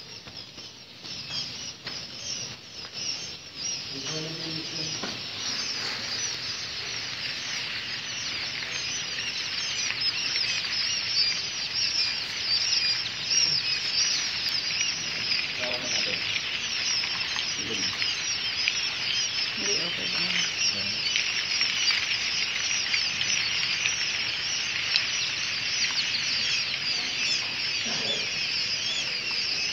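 A large brood of caged quail chicks peeping all at once, a dense, continuous chorus of high, rapid chirps that grows louder about ten seconds in. Faint voices are heard now and then underneath.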